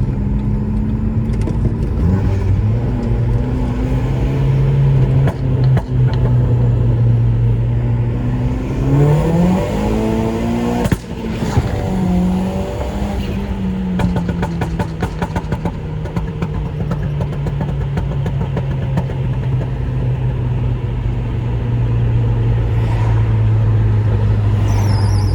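Seat Leon's 1.8 20-valve turbo four-cylinder engine cruising steadily, then revving up under acceleration about a third of the way in. On the sudden throttle lift it gives a few seconds of rapid fluttering chatter, the turbo flutter of compressor surge, before settling back into a steady cruise.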